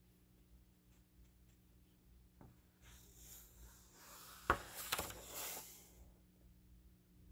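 A book page being turned by hand: a paper rustle of about three seconds, with two sharp flaps of the page about halfway through.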